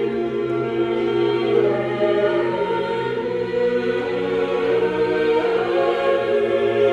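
Mixed choir of women's and men's voices singing a sacred choral piece in several parts, holding long sustained chords that shift slowly.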